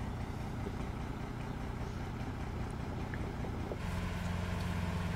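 Large all-terrain vehicle's engine running steadily at low revs. About four seconds in, the engine note steps up louder as it takes more throttle.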